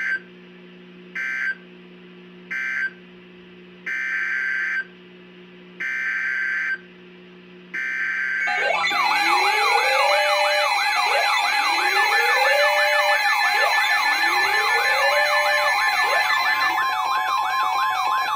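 Emergency Alert System data tones: three short bursts of harsh digital screech about a second apart, then three longer ones, the SAME end-of-message and header codes, over a low steady hum. About eight seconds in, a loud layer of several overlapping rising and falling siren tones and steady alert tones begins and runs on.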